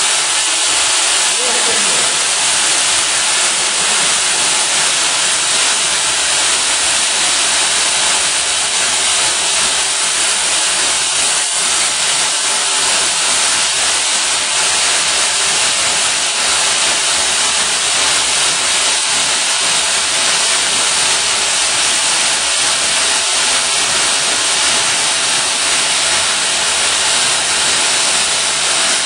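Friction stir welding machine working aluminium plate, its spindle tool turning in the joint: a loud, steady hiss that does not change.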